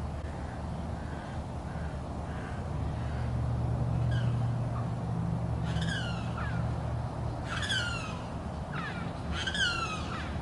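A bird calling repeatedly in the second half, with short downward-sliding cries in quick groups, over a low steady hum.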